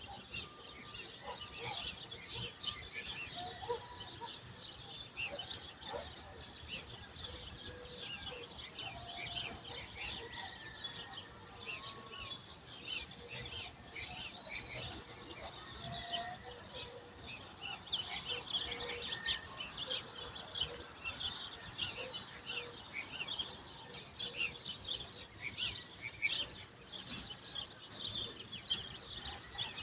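Many small birds chirping and calling at once in a dawn chorus: a dense, continuous stream of short high chirps, with a few lower whistled notes, over a faint low background rumble.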